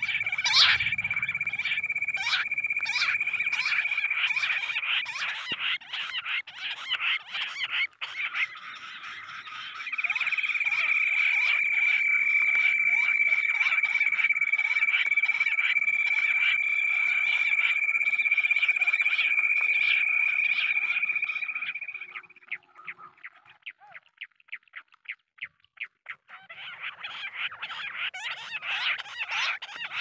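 Jungle bush quail call played through a small speaker as a lure: a rapid, rattling trill with a steady high whistle over it. It weakens briefly about seven seconds in, and about 22 s in it thins to faint quick clicks, then comes back strongly near the end.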